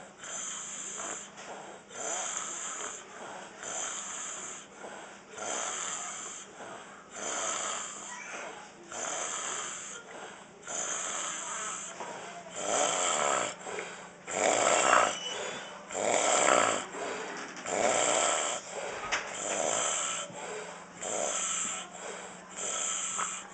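A man snoring, with repeated snores about one every second and a half, loudest about halfway through.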